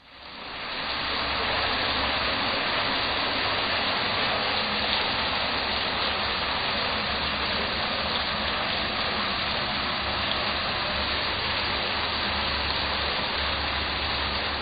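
Heavy rain pouring down in a steady downpour, fading in over about the first second.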